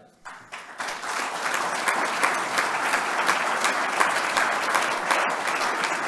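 Audience applauding: the clapping starts about half a second in, swells within a second and then holds steady.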